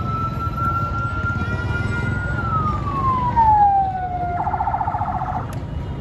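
Vehicle siren wailing: the tone holds high, glides down, and about four and a half seconds in switches to a brief fast warble. Under it a steady rumble of street traffic.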